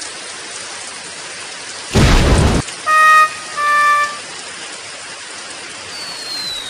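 Sound effects played back from a phone audio editor: a short loud burst about two seconds in, then two short pitched electronic tones, the second a little lower, and a faint falling whistle near the end. A steady rain-like hiss runs underneath.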